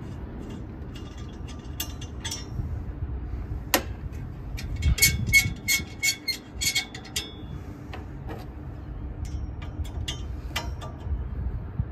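Light metallic clicks and taps of hands and a tool working the brass Schrader service-port caps and valve cores on the refrigerant pipework, with a quick run of clicks about five to seven seconds in. A steady low rumble sits underneath.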